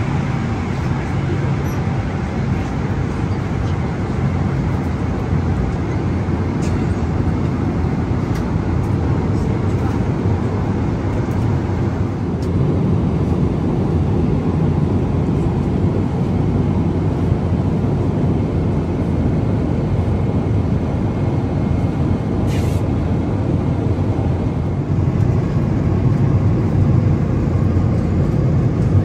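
Boeing 777-300ER cabin in flight: the steady low roar of engines and airflow, swelling slightly a couple of times.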